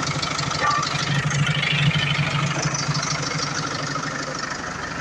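Iveco Eurocargo Tector truck's diesel engine idling, a steady low running sound with an even pulse.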